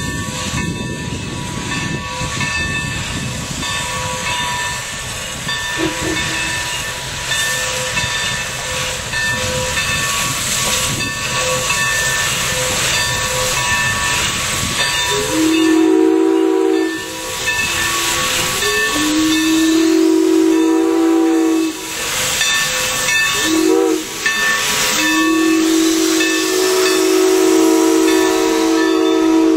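Steam train rolling with a steady hiss, then from about halfway the locomotive's chime whistle blows four blasts, long, long, short, long: the signal for a grade crossing.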